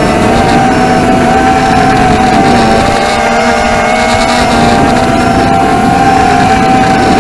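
ZMR250 racing quadcopter's four DYS 2204 brushless motors spinning Dalprop 5040 tri-blade props, a steady motor-and-prop whine that wavers slightly in pitch with the throttle, heard from the onboard camera with wind rushing over it.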